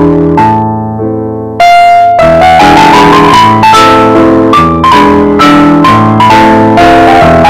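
Background piano music: a gentle melody of single struck notes over held lower notes. It thins out briefly, then a louder phrase starts about one and a half seconds in.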